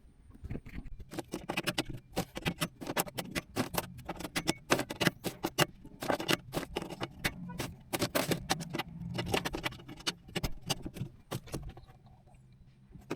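Rapid, irregular clicking and rattling of small hard objects being handled, over a steady low hum; the clicking stops about a second before the end.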